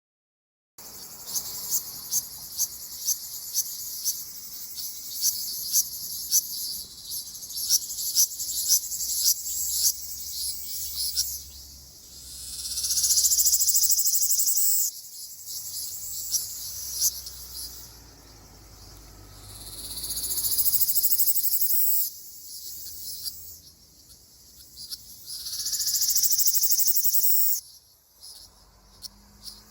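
Ryukyu large brown cicada (Graptopsaltria bimaculata) singing: runs of sharp ticks about two a second that build in loudness, breaking into long high buzzes of about three seconds, three times over.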